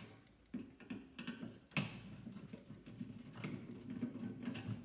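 Hand screwdriver backing out the screws that hold a microwave oven's magnetron: faint, scattered metallic clicks and ticks, with one sharper click about two seconds in.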